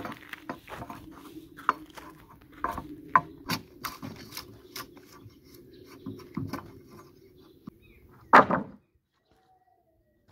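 Hewn pine boards knocking and clattering as they are handled and shifted, irregular wooden knocks with a loud wooden thump about eight seconds in; the sound then cuts off suddenly.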